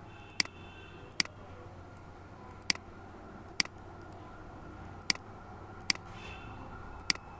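Computer mouse button clicking seven times, sharp single clicks about one to one and a half seconds apart, over a low steady hum.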